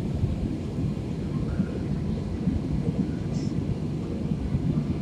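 Jet airliner in flight heard from inside the cabin: a steady low rush of engine and airflow noise.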